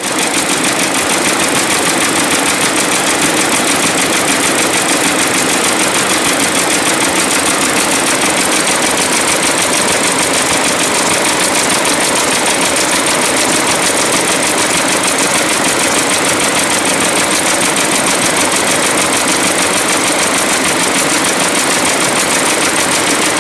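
Multi-functional bead sewing machine running, its needle head stitching beads onto fabric with a loud, fast, even mechanical rhythm.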